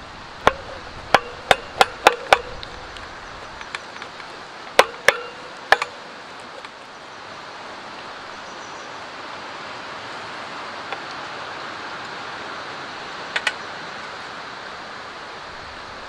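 A wooden spoon knocking and scraping against an aluminium mess tin: a quick run of six sharp, slightly ringing clicks in the first two and a half seconds, three more around five seconds, and a double click near the end. A steady hiss lies under them.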